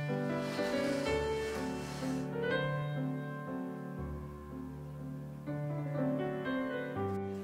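Gentle background music with piano, slow notes over held bass notes.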